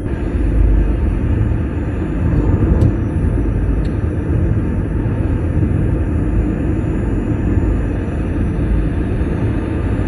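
Steady low road and drivetrain rumble of a Nissan Leaf 30kWh driving along, picked up from beneath the rear seat with the cover off. A few faint ticks come about two and a half to four seconds in.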